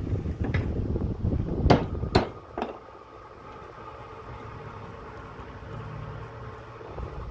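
Four sharp metallic knocks in the first three seconds, each with a short ring, over a low rumble. After them comes a quieter, steady low hum.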